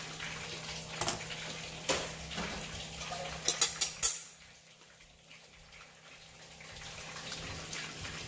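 Sharp clinks and knocks of a ceramic dinner plate and cutlery: single ones about one and two seconds in, then four in quick succession about three and a half seconds in, over a faint steady hum.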